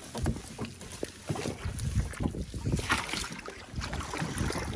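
A kayak being shoved off and paddled: irregular knocks and splashes of a paddle working the water, with a louder splash about three seconds in and wind noise on the microphone.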